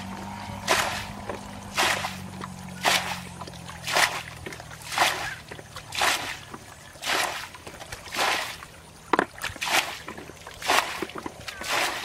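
Muddy water being scooped up with a small bucket and flung out of a shallow pool, one splash about every second in a steady rhythm.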